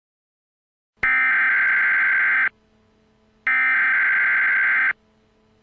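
Emergency Alert System SAME header: two bursts of digital data tones, each about a second and a half long and a second apart, starting about a second in after silence. These encoded bursts mark the start of an emergency alert broadcast.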